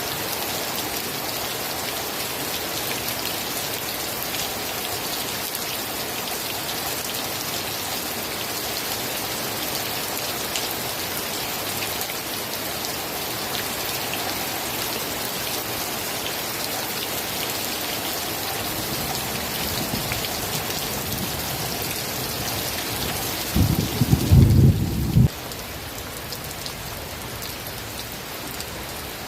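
Steady rain falling, an even dense hiss. About three-quarters of the way through comes a brief deep rumble lasting under two seconds, the loudest moment. After it the rain goes on a little quieter.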